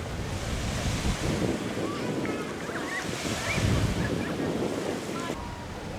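Wind buffeting the microphone in gusts over a steady wash of sea surf.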